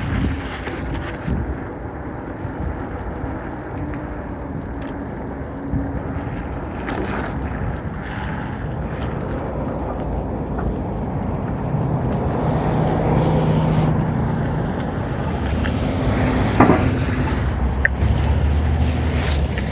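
Mountain bike being ridden: tyre noise and wind rushing over the microphone, with a few sharp rattles and clicks from the bike.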